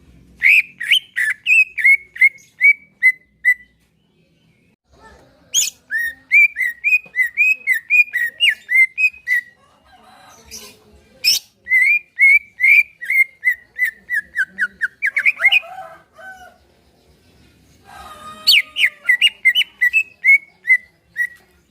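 Green leafbird (cucak ijo) singing: four loud phrases of quick, repeated whistled notes. Each phrase trails off lower and quieter at its end.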